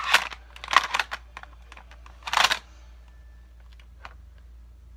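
Hard plastic clicks and knocks as a BB pistol is pushed into and handled in a molded plastic holster: a handful of sharp clicks in the first two and a half seconds, then only a few faint ticks.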